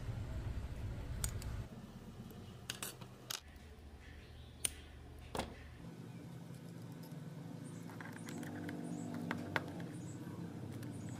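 A low steady hum with several sharp clicks and taps scattered through it.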